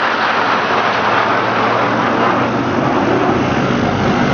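Propeller aircraft's piston engine droning as it flies by, a loud steady noise with its low engine note growing stronger toward the end.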